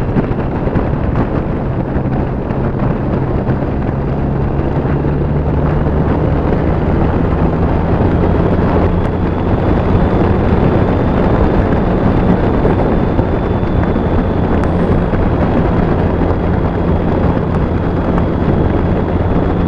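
BMW K75's three-cylinder engine pulling steadily at road speed, with wind rushing over the microphone. The engine note rises slightly about a third of the way in.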